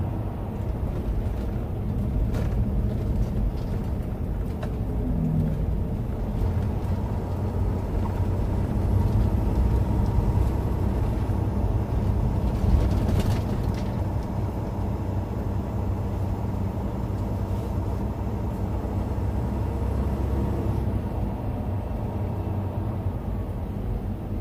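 Semi truck's diesel engine running steadily at road speed, a continuous low drone with road and tyre noise, heard from inside the cab.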